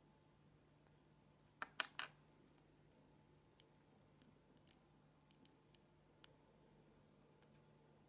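Small magnet balls clicking as they snap onto each other one at a time. A quick run of three clicks comes about two seconds in, the loudest, then single sharper clicks follow every half second or so for the next few seconds.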